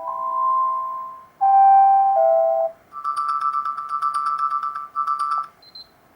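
Electronic phone ringtone tones from a Black Fox B5 smartphone: a held two-note chime, then about a second and a half later a fast run of bright, rapid beeps with a short break, ending in one brief high blip.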